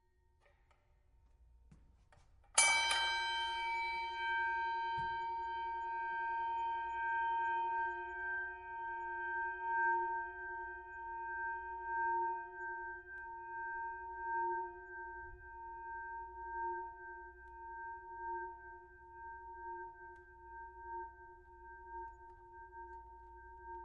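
Boxing bell struck once about two and a half seconds in, then ringing on in a long, slowly fading tone that wavers in loudness as it dies away.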